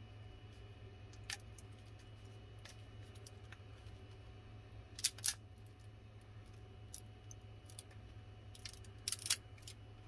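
Sharp clicks and small crackles from a 3D-printed plastic part being handled and flexed in the hand: a single click, a cluster about halfway through and another near the end, over a steady low hum.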